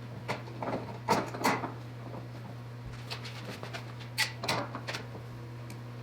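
Clamps being set and tightened on a wooden slab: short knocks and clatters in two clusters, about a second in and again about four seconds in, over a steady low hum.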